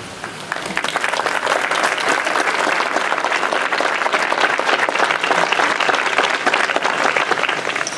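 Seated audience applauding: many hands clapping, starting about half a second in and stopping just before the end.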